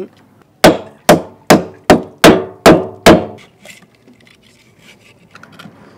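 Seven quick, sharp hammer blows on a conch shell resting on a wooden cutting board, about two a second. Each is a hard crack with a short ring. The blows are smashing off the end of the shell to free the snail inside.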